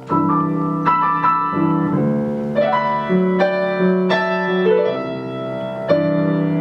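Piano playing an instrumental stretch of a song: sustained chords with a melody of single notes over them, a new note or chord struck every half second or so.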